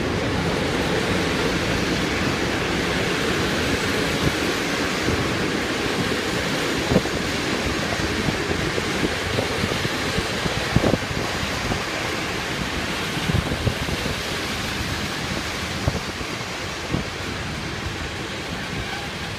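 Passenger coaches of an electric-hauled train rolling past on the track: a steady rumble of wheels on rails with scattered clacks over rail joints, easing off as the last coach goes by.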